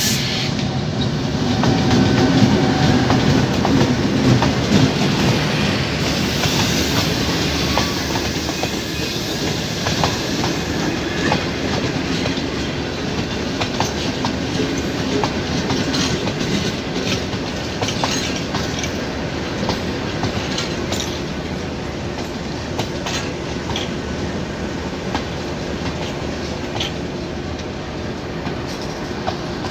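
Passenger train passing close by: a diesel locomotive's engine rumble in the first few seconds, then the coaches rolling past with steady wheel noise and clicks over the rail joints. The sound eases slightly toward the end.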